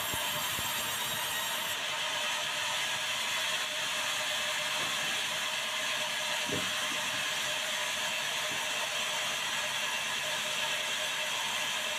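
Sawmill band saw headrig running steadily, a constant hum and hiss, with mechanical clattering from the log carriage and one distinct knock about six and a half seconds in.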